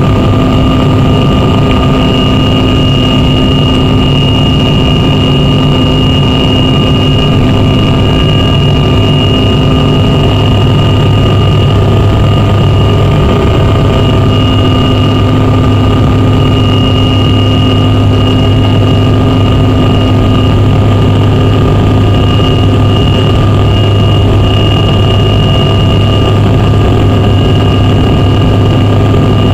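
Cabin noise of a Canadair CRJ700 climbing after take-off: the steady drone of its rear-mounted General Electric CF34 turbofans heard from inside the cabin, with a steady high whine over it.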